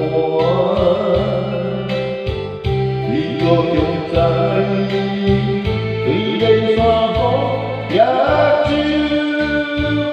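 A man singing karaoke through a corded microphone over a backing track, with held bass notes changing every second or so beneath his voice.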